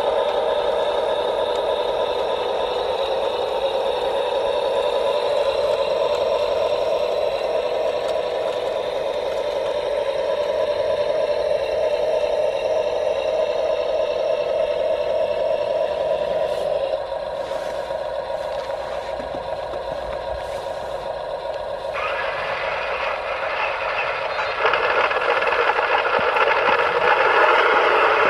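Electric drive motors and gearing of 1:16 radio-controlled military models, a half-track and an armoured car, whining steadily as the vehicles drive. The whine drops about two-thirds of the way through, then comes back louder in two steps near the end.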